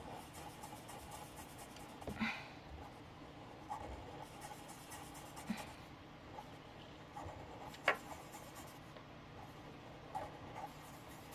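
Faint scratching of a Sharpie felt-tip marker on a paper card as small circles are coloured in, with a few short clicks.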